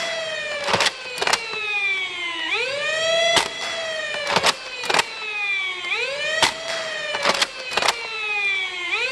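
Nerf Longstrike spring blaster with a BlasterCore flywheel afterburner being primed and fired shot after shot. The flywheel motors whine up quickly in pitch and then wind slowly down, three times, with sharp clacks of the priming and firing between.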